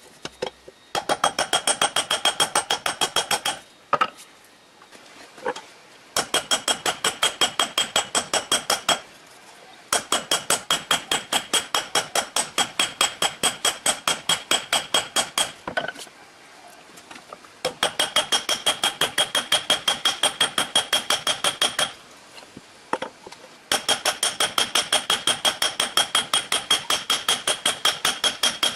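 Hand hammer striking red-hot steel on an anvil, hand-forging an old hammer head into a tomahawk blade. The blows come fast, about four a second, each with a ringing anvil tone, in five runs of several seconds broken by short pauses.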